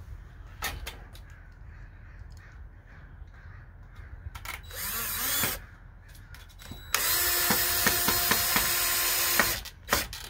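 Cordless drill driving a screw through a metal gate bracket into a wooden 2x4: a short run about halfway through, then a longer steady run of about two and a half seconds. A few light clicks of handling come near the start.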